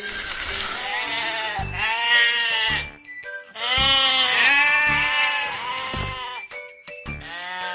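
Sheep bleating several times, long calls that arch up and down in pitch, over background music.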